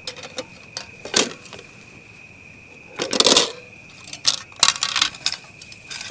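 Metal camp cooking gear clinking and clattering as it is handled: a few sharp clinks, a longer rattle about three seconds in, then a quick flurry of knocks. A steady high insect trill runs underneath.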